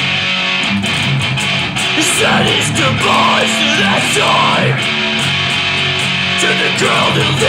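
Pop-punk rock track: electric guitars strumming over bass and drums in a steady, loud band mix.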